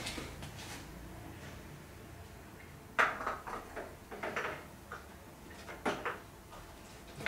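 Handling noise: a sharp click about three seconds in, then a scatter of short knocks and clatters, and two more knocks near six seconds.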